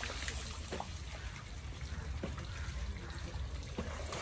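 Shallow stream water trickling, with light splashes as water is scooped and thrown by hand onto an elephant's body, over a steady low rumble.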